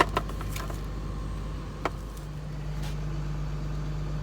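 Vehicle engine idling, a steady low hum that grows a little louder about two seconds in, with a few light clicks and taps over it: a sharp one right at the start, then single ones about two and three seconds in.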